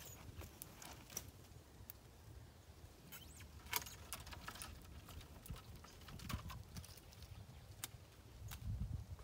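Long-handled loppers cutting branches from a dormant stone-fruit tree, with twigs rustling and clicking: irregular sharp snips and clicks, the loudest about three and a half seconds in.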